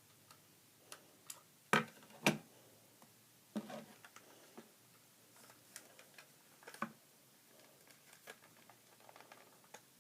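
Handling noise: scattered light clicks and knocks as hands work electrical tape onto the plastic battery door of a smoke alarm, with two louder knocks about two seconds in.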